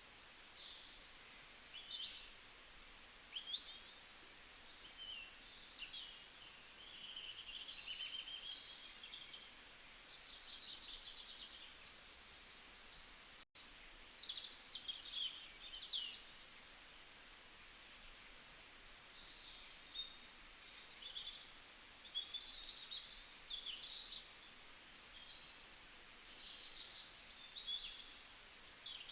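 Several birds singing and chirping at once, a steady chorus of short, varied high calls and trills, with a split-second break about halfway through.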